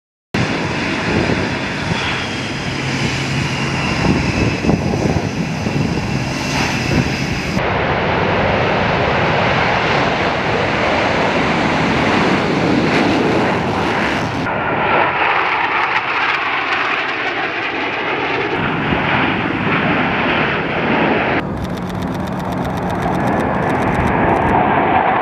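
Jet engine noise from Blue Angels F/A-18 Super Hornets during a formation takeoff and flyby, loud and continuous. The sound changes abruptly three times where the footage is cut together.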